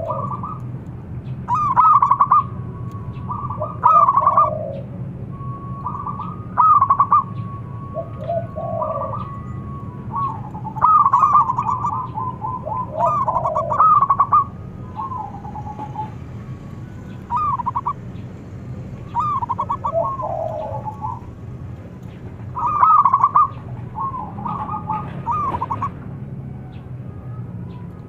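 Zebra dove (perkutut) singing: phrases of quick, broken coo notes repeat every one to three seconds. A steady low hum runs underneath.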